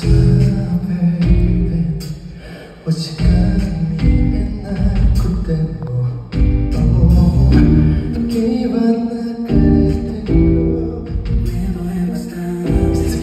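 A male singer singing live into a microphone with a band of drums and keyboards, heard through the PA of a concert hall from the audience seats.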